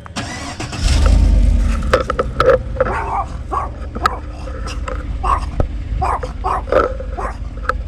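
Stock 2014 Chevrolet Silverado 5.3-litre V8 cranking on the starter and catching about a second in, then idling with a low rumble through its factory resonator and muffler. A dog barks again and again over the idle.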